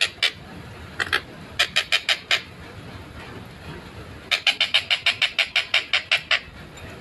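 Stork-billed kingfisher (tengkek buto) calling in quick series of short, sharp notes. There are a few near the start, a group of five about two seconds in, then a fast run of about fourteen notes over two seconds past the middle.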